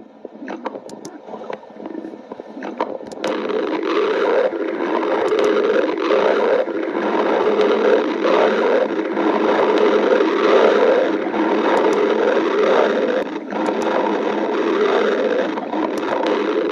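Stomach growling: one long, continuous rumble that wavers in pitch, getting louder about three seconds in.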